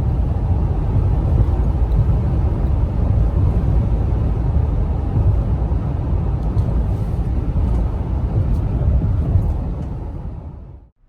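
Steady low rumble of road and wind noise from a Toyota pickup truck driving at freeway speed, fading out near the end.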